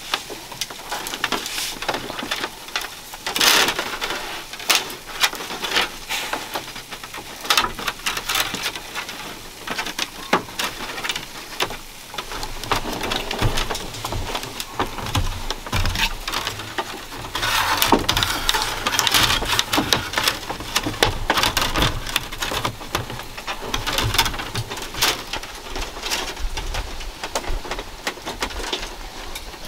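Thin bamboo strips clicking, swishing and tapping against each other and a bamboo-slat floor as they are woven by hand, in irregular bursts of short clicks.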